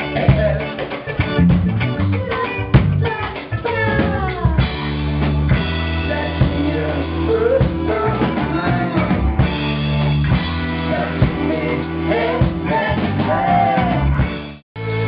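A live band playing: drum kit, guitar and bass under several male vocalists singing into microphones. The sound cuts out for a moment near the end, then the music comes straight back.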